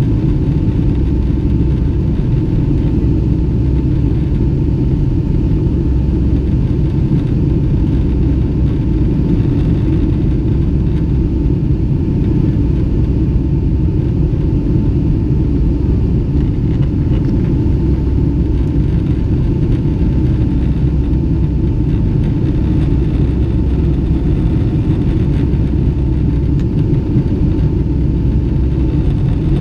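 Boeing 757-200 jet engines heard from inside the passenger cabin during the climb after take-off: a loud, steady low rumble with a thin, steady whine held above it.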